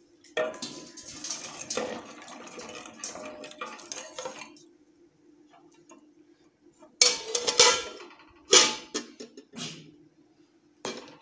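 Steel ladle stirring milky tea in a metal pot, scraping and clinking against the pot's sides for the first few seconds. Several louder metal clanks of ladle and pot follow in the second half. A steady low hum sits underneath.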